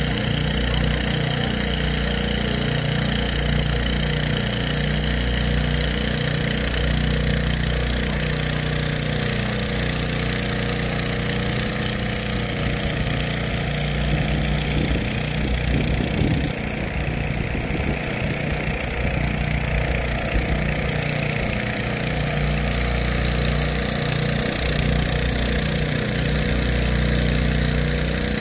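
Agricultural spraying drone's propellers and motors humming steadily in flight, a deep drone whose pitch rises and falls slightly as it manoeuvres.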